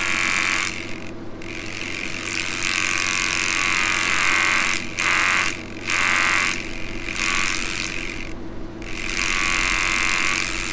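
Small test speaker, fed from a car amplifier's outputs through a small capacitor in series, buzzing with clipping distortion as a 45 Hz test tone drives the amplifier into clip. The buzz is the sign that the amplifier is clipping, its waveform reaching the internal rail voltage. It cuts out briefly about four times.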